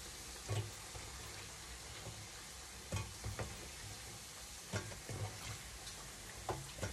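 Balls of glutinous rice dough frying in a pan of hot oil: a steady sizzle with about seven sharp pops and spatters at irregular intervals, the oil popping as the dough fries.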